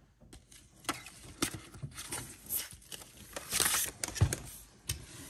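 Cardboard packaging being handled: a boxed oil-stick set is slid out of its cardboard sleeve, with rustling and a run of knocks and taps as the box is moved on the table. The loudest rustle comes a little past the middle.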